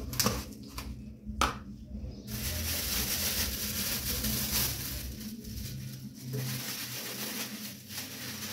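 A few sharp taps and clicks from a plastic spice shaker, then a steady crinkly rustle from about two seconds in as a thin plastic glove is handled.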